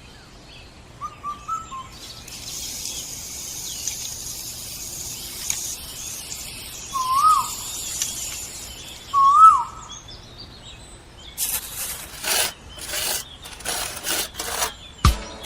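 Outdoor ambience: three short whistled bird calls over a steady high hiss, followed in the last few seconds by a series of rough scraping noises.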